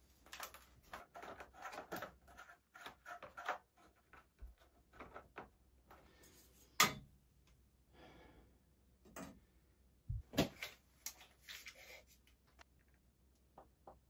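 Copper pipe and brass fittings being handled and offered up into place: scattered clicks, scrapes and knocks, thickest in the first few seconds, with a sharp knock about seven seconds in and two thumps around ten seconds.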